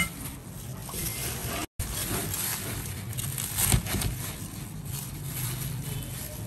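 Cleaver cutting through crisp deep-fried breaded squid on a plastic cutting board: crunching of the crust with knocks of the blade on the board, the sharpest a little past halfway. A steady low hum runs underneath.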